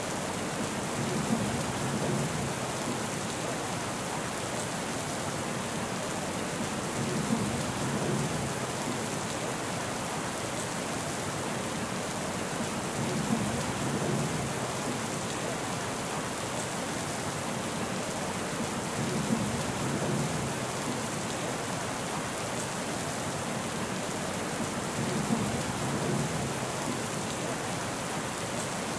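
Steady rain, a dense even hiss. A short low rumble comes in five times, evenly about every six seconds.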